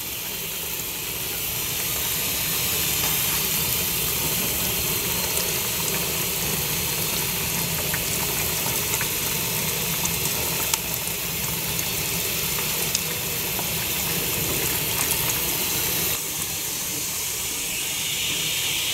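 Hot water and melted beeswax draining out of a wax-rendering kettle through the slumgum and filter screen into a bucket: a steady hiss with a watery trickle, with a few light clicks of the pliers on the screen.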